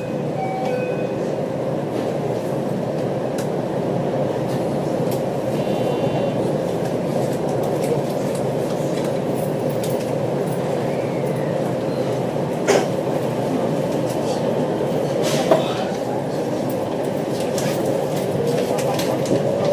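Passenger train running, heard from inside the carriage: a steady rumble of wheels and running gear with a faint whine. Two sharp clicks come about two-thirds of the way through, and the whine starts to rise in pitch near the end.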